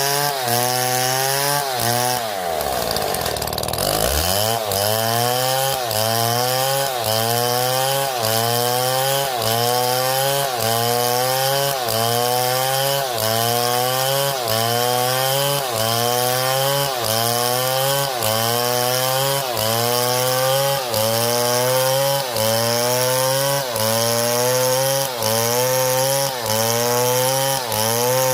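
Powered wood-cutting machinery running in a regular cycle, its pitch rising and snapping back about once a second. About two seconds in, the pitch falls steeply and then recovers.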